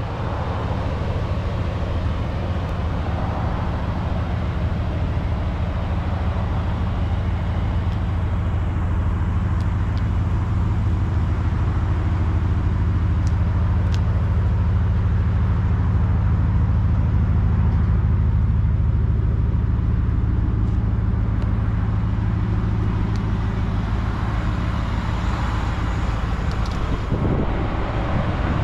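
2019 Ford F-150 Shelby Super Snake's supercharged V8 idling, a low, even rumble that holds steady throughout.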